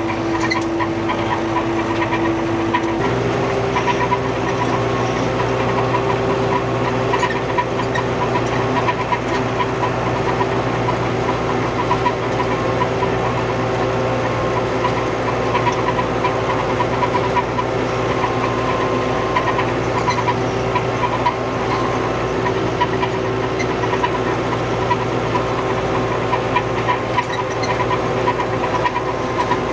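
Old farm tractor's engine running steadily under load, heard from inside the cab. The engine note steps up a little about three seconds in, then holds steady.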